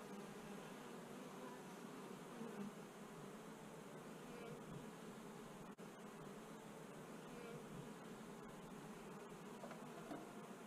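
Many honeybees buzzing around an open top-bar hive: a quiet, steady, low hum.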